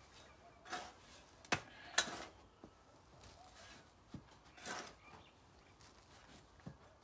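Spade scooping and tipping loose potting substrate into a planting hole: a few short soft swishes of soil, with several sharp clicks of the blade.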